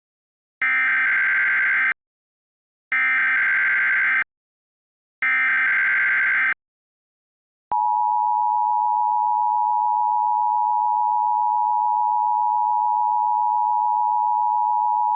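Emergency Alert System mock alert: three bursts of SAME header data tones, each about a second and a half long with a gap of about a second between them, then, a second later, the steady two-tone EAS attention signal, which starts abruptly and holds unchanged.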